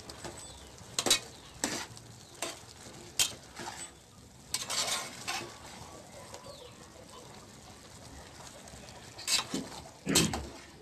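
A spatula stirring a thick mix of vegetables and ground coconut in a metal pot, with scattered scrapes and knocks against the pot. Between the strokes there is a faint steady simmer as the liquid cooks off.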